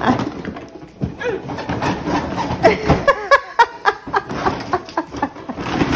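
Cardboard box scraping and hard plastic toy-track pieces knocking and clattering as the boxed Hot Wheels Ultimate Garage is tipped over and dumped out, with a few short bursts of a child's voice near the middle.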